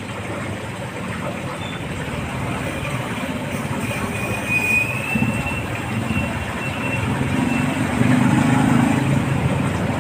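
Low rumble of a running vehicle that swells louder about eight seconds in.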